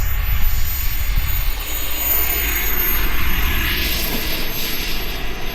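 Turbine engine of a Starfire RC model jet passing by: a rushing jet noise that swells to its loudest about four seconds in, over a thin, very high whine that slowly drops in pitch.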